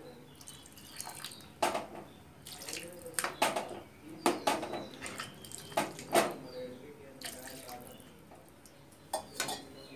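Steel ladle stirring a watery curry in a steel kadai: liquid sloshing, with sharp clinks of the ladle against the pan, often two close together.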